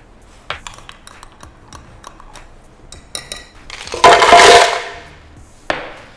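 Ice cubes poured from a cup into a blender jar: a loud clattering rush lasting under a second, about four seconds in. Before it come scattered light clinks and taps, and near the end one sharp clink.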